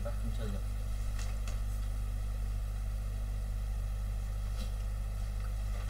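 Steady low electrical mains hum with a faint hiss, and a few faint scratches of a colouring pen on paper.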